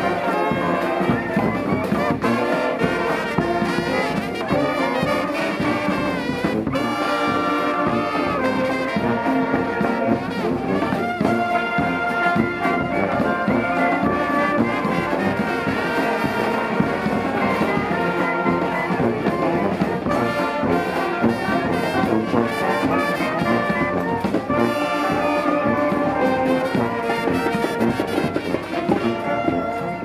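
Large New Orleans–style street brass band playing live: trombones, trumpets, sousaphones and saxophones sounding together in full ensemble.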